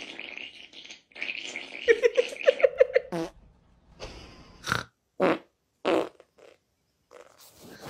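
A long, fluttering fart about two seconds in, followed by several short, sharp sounds.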